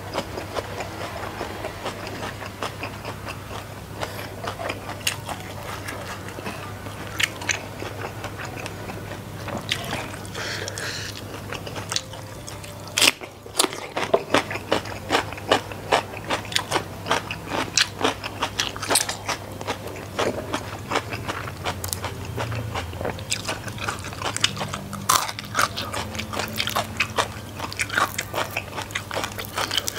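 A person chewing and biting food close to the microphone: wet mouth clicks and crunches of rice, raw cucumber and salted fish eaten by hand. The crunches come thicker and louder from about halfway through.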